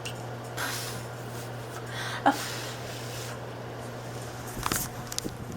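A pet cat sniffing and licking right at the microphone: a few short breathy snuffles and rustles, with one sharp tick a little past two seconds in, over a steady low hum.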